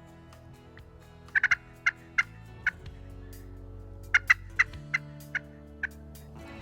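Turkey yelping in two series of sharp, short notes, each series loudest at its start and slowing toward its end.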